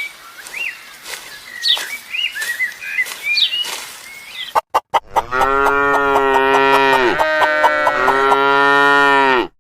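A cow mooing: a long, low, drawn-out moo from about five seconds in that dips once in pitch midway and cuts off sharply near the end. Before it comes a run of short, high chirping calls.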